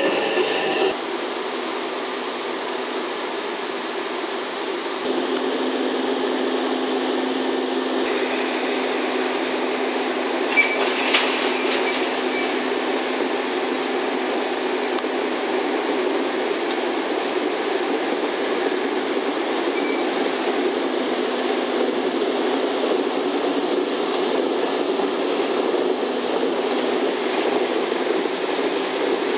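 JR EF65 electric locomotive and its Chiki 5500 rail-carrying flat wagons, with the steady running noise of the locomotive and wagons. About eleven seconds in there are a couple of short metallic squeaks and clicks.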